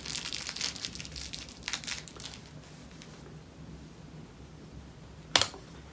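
Hands fitting elastic bands onto a small wooden organiser: crinkly handling noise over the first couple of seconds, then one sharp snap about five seconds in.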